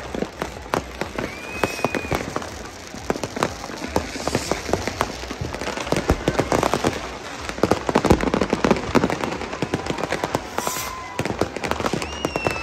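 Fireworks and firecrackers going off all around in a dense, irregular run of bangs and crackles, loudest past the middle.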